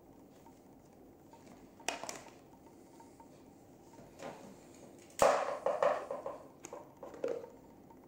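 Hard plastic clicks and clatter as the clear dust bin is unlatched from a cordless vacuum's handheld unit and its cylindrical filter is pulled out. One click comes about two seconds in. The loudest clack, about five seconds in, is followed by a short rattle and then two lighter knocks.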